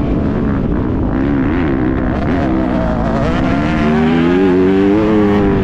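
Motocross bike engine heard from the rider's own onboard camera, its revs rising and falling as it is ridden round the track, over a heavy low wind rumble on the microphone. The revs climb about four seconds in and drop again near the end.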